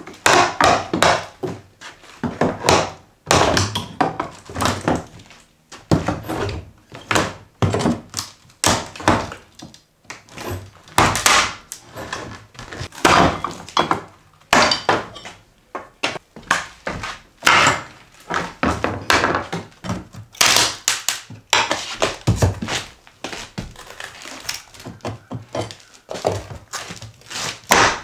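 Steel pry bar working old knotty-pine floorboards loose: a run of irregular, sharp wooden knocks and thunks as the bar is struck and levered under the boards.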